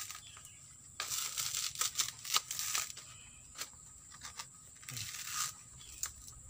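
Husks of sprouting coconuts being cut open with a machete and pulled apart by hand: scattered tearing and rasping of the fibrous husk with sharp little knocks, busiest from about a second in and again near the end.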